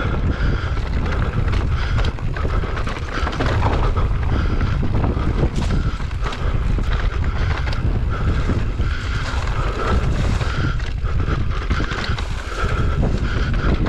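Wind buffeting the microphone of a mountain bike rider's camera on a dirt singletrack descent, with a steady low rumble, tyre noise and frequent short knocks and rattles from the bike over the rough ground.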